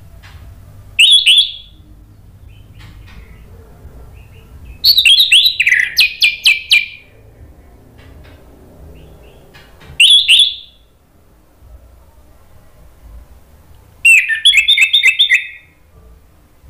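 Orange-headed thrush singing loudly in four short phrases a few seconds apart, each a quick run of whistled notes, the last a rapid string of about half a dozen repeated notes.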